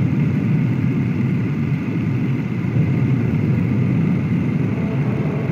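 Steady low engine-like rumble with no separate blasts standing out, as under wartime battle footage.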